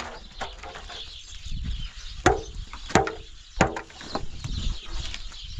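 Three sharp knocks in quick succession, about two to four seconds in, the first two with a short ringing after them, over background farmyard animal sounds such as chickens.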